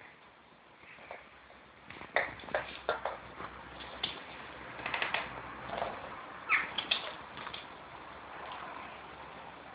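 West Highland white terrier attacking a dog biscuit: irregular clicks, taps and knocks as the biscuit is batted and struck against the floor, busiest in the middle stretch.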